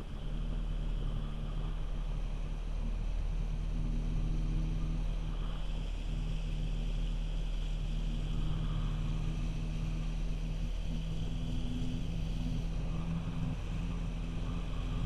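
Jet ski engine running at speed, with water spraying off the hull. The engine picks up right at the start, then holds a steady pitch.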